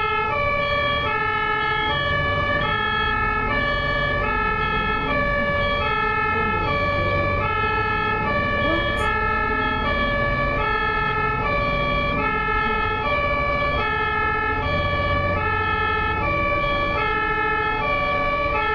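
German two-tone ambulance siren (Martinshorn) alternating steadily between a low and a high note, with a vehicle rumble underneath.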